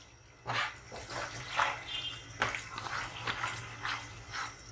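Slotted spatula stirring minced meat frying in a pan: irregular wet scraping strokes with sizzling, starting about half a second in and coming every half second or so.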